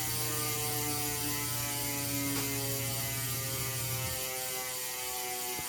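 Mavic Instant Drive 360 ratchet freehub on an Allroad S wheel freewheeling, its clicks coming so fast they run together into an even buzz as the wheel coasts. A low hum under it stops about four seconds in.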